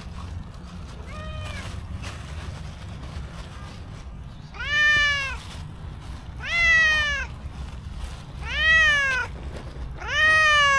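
Domestic cat meowing up at a person: one faint short meow, then four loud drawn-out meows about two seconds apart, each rising and then falling in pitch.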